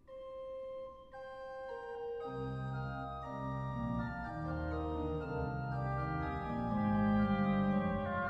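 Organ playing an instrumental passage in several parts. A single held voice begins, further voices enter one after another over the first two seconds, and a bass line comes in about two seconds in, the sound growing gradually louder.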